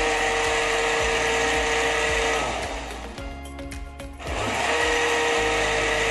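Countertop blender pureeing boiled squash: a loud, steady motor whine that dies away a little before halfway and starts up again about two seconds later.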